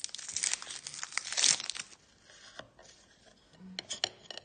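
Plastic wrapper of a Reese's chocolate bar being torn open and crinkled, a dense crackle that is loudest about one and a half seconds in and then dies down. Near the end, a few sharp clicks of a knife against a plate.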